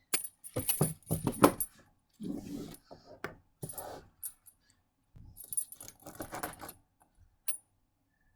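A knife sawing and scraping at a heavy chain bike lock, cutting into its leather cover, while the steel chain links clink and jangle in irregular bursts.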